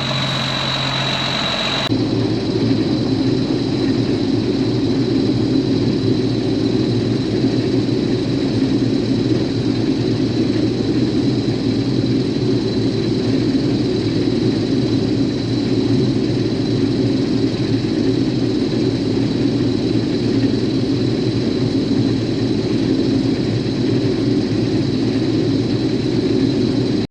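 Case IH combine running steadily under way, a dense even drone of engine and machinery. About two seconds in, the sound changes abruptly from a thinner engine sound with a high whine to the fuller running sound.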